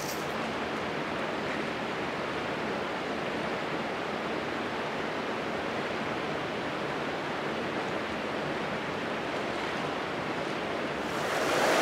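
Creek water rushing steadily over rocks, growing louder near the end.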